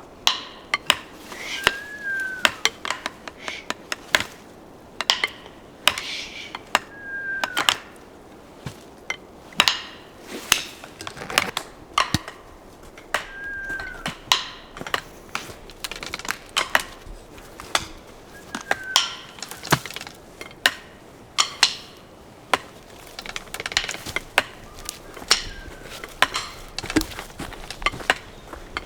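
Woodpecker pecking at wood: irregular sharp taps, sometimes in quick clusters, rather than a fast drumming roll. A short high note rises and falls about every five or six seconds.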